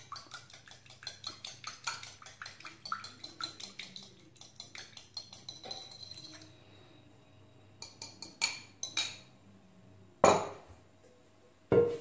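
A metal utensil whisking a lemon and olive-oil dressing in a small glass bowl: a rapid run of clinks against the glass for about six seconds. After that come a few lighter clinks, then two louder knocks near the end as a stainless steel mixing bowl is handled and set down.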